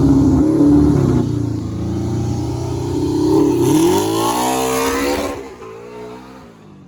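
Car engines at full throttle in a roll race, accelerating hard; the pitch climbs about three seconds in, then the sound fades away as the cars pull off into the distance.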